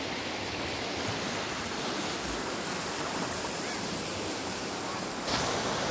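Fast, shallow stream rushing over rocks in whitewater: a steady rush of water that grows louder about five seconds in.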